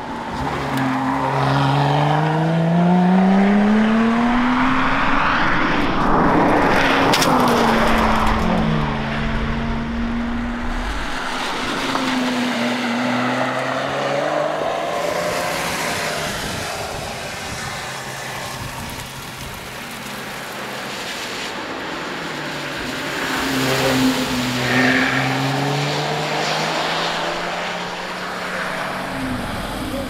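Lotus Exige Sport 350's supercharged V6 engine driven hard, its pitch climbing in steps through the gears as the car comes past, loudest a few seconds in, then falling away. Later the revs climb through the gears again as the car passes a second time.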